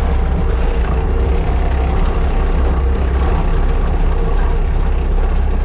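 Skid steer engine running steadily, loud and low, with a constant drone and no change in pitch.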